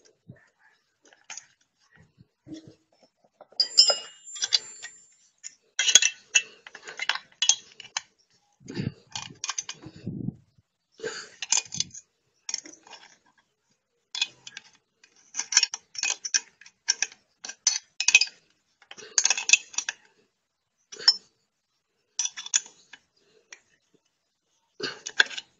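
Metal parts and tools being handled: irregular clinks, clicks and clatters in short bursts, with a couple of duller knocks about nine and ten seconds in.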